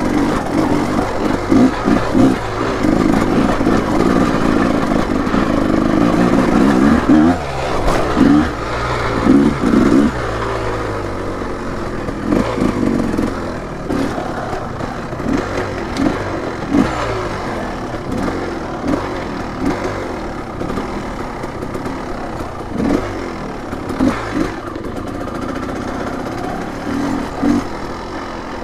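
Small dirt bike engine being ridden on a trail, its revs rising and falling in frequent short surges with the throttle. It runs louder for the first ten seconds or so, then somewhat lower.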